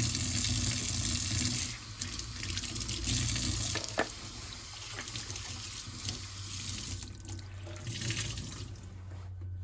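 Tap water running into a kitchen sink, steady for the first couple of seconds, then splashing on and off. There is one sharp knock about four seconds in.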